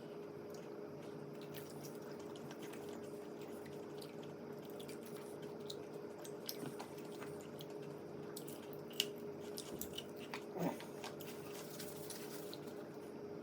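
A man chewing chicken wings, with wet smacks and small clicks and a couple of louder bites near the end, over a steady low hum.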